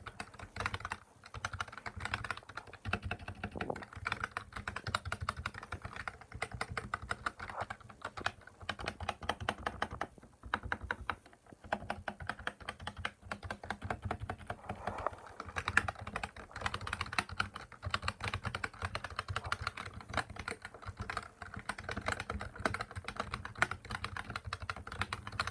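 Continuous fast typing on a NOS K200 keyboard: a dense stream of key clicks, broken by a short pause about eleven seconds in.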